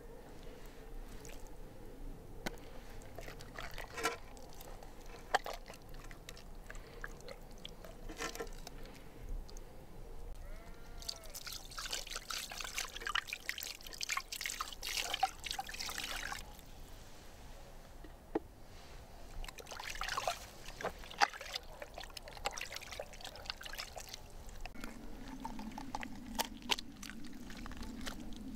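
Water being poured and trickling, in two longer spells, amid scattered knocks and clicks of handling. A steady low hum comes in near the end.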